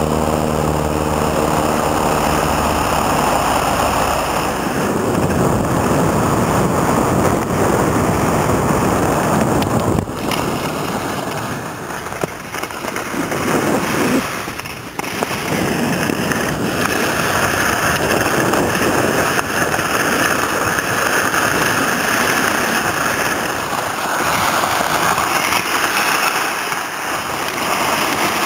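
Steady noise of wind buffeting the microphone and skis sliding over snow during a run down a forest track. It breaks briefly twice around the middle.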